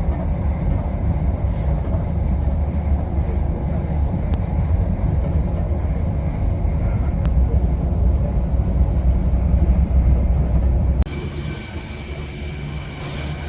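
Steady low rumble of a moving vehicle heard from inside it. About 11 seconds in it cuts off abruptly to quieter background noise with a faint steady high tone.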